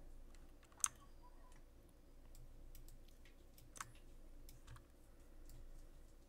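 Computer mouse buttons clicking quietly a few times, with two sharper clicks about a second in and near four seconds in, over a faint steady hum.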